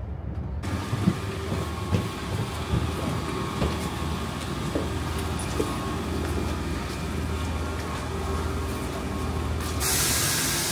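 A steady low mechanical rumble with a faint whine and scattered clicks, then a loud hiss starting near the end.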